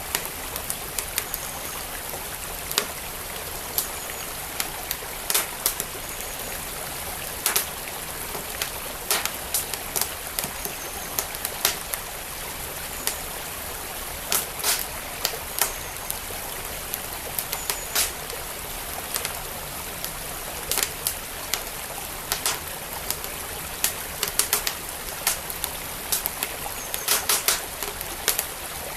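Wood fire in a fireplace crackling with frequent, irregular sharp pops, over the steady rush of flowing stream water.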